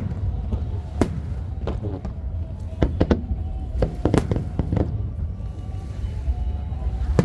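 Aerial fireworks bursting: a string of sharp bangs at irregular intervals, bunched about three to five seconds in, over a steady low rumble.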